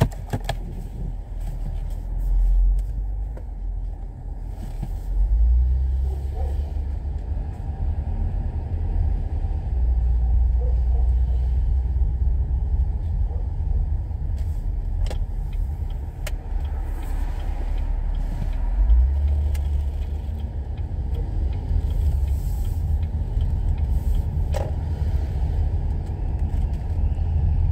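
Low rumble inside a car's cabin while driving, swelling and easing, with a few faint clicks.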